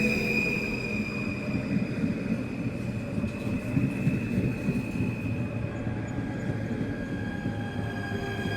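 A passing train: rumble of wheels on rails with several high whining tones that drift slowly in pitch.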